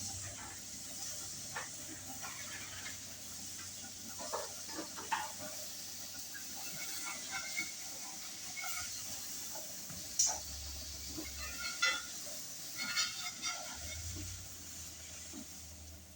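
Eggs cooking in a hot pan with steam, a steady sizzling hiss, with scattered light clicks and knocks of kitchenware, a few louder ones in the second half.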